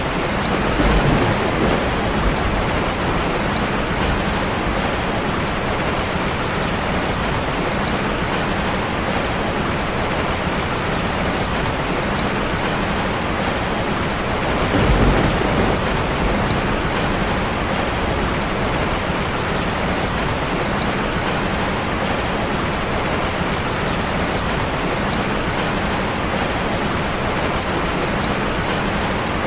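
Steady heavy rain, with low rumbles of thunder swelling about a second in and again about halfway through.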